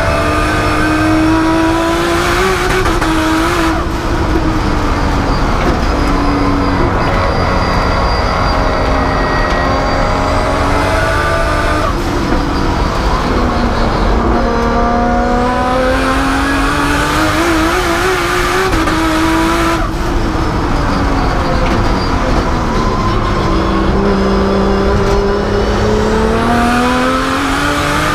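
Nissan R32 Skyline GT-R race car's turbocharged engine under hard acceleration on track, heard from inside the cabin. Its revs climb and fall again and again through gear changes and braking, with three sharp cuts where it shifts.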